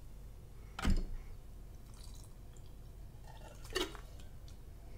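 Wet canned spinach being poured from a tipped tin can into a glass bowl: a loud short sound about a second in, a smaller wet plop near the end, and faint liquid drips between them.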